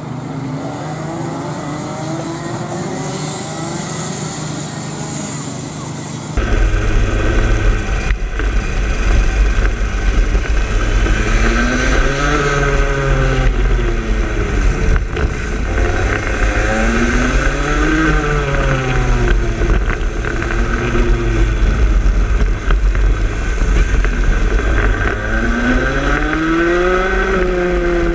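Racing kart engine running at race speed. At first it is fainter, its pitch climbing steadily. About six seconds in the sound cuts to a much louder on-board one with a heavy low rumble, and the engine's pitch rises and falls in long sweeps about three times as it accelerates and lifts off round the lap.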